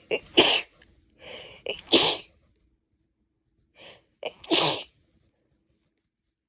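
A woman with a cold sneezing three times, about two seconds apart, each sneeze led by a quick breath in.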